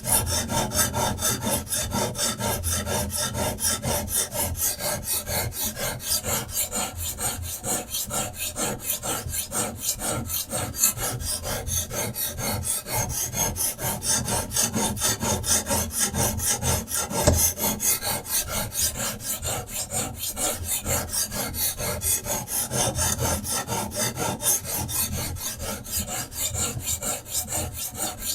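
A sharpening stone stroked rapidly and regularly back and forth along a knife edge on a guided sharpener, a steady rasping scrape.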